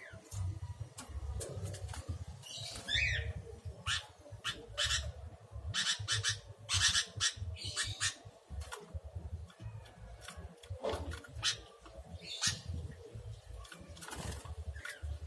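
Caged sooty-headed bulbuls (kutilang) making short chirping calls and fluttering, with many quick rustles and scuffs.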